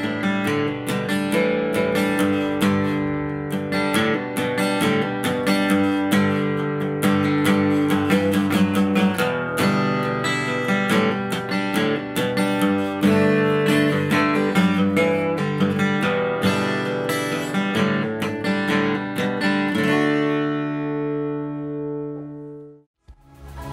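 Gibson 1930s Advanced Jumbo acoustic guitar, with an Adirondack red spruce top and rosewood back and sides, played solo as a busy run of picked notes and chords. Near the end a last chord rings out and fades away.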